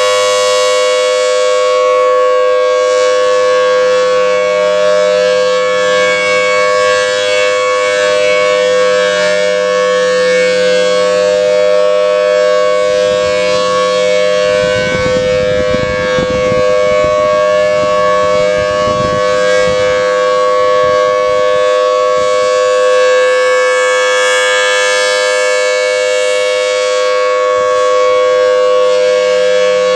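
Federal Signal Thunderbolt 1000T rotating outdoor warning siren sounding a steady wail, holding one pitch at full speed, its tone brightening and dulling as the horn turns.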